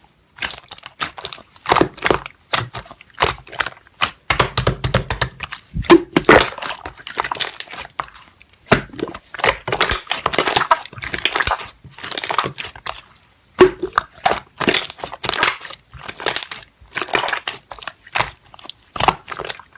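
Slime being squished and poked by hand: a dense, irregular run of small crackling and popping clicks with brief pauses.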